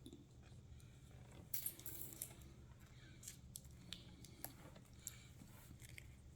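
Near silence with scattered faint clicks and crinkles from snacks being handled, a small cluster of them about one and a half seconds in.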